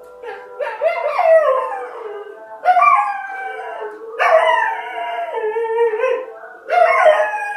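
A dog howling along in about four long drawn-out howls, each sliding down in pitch, its 'singing'.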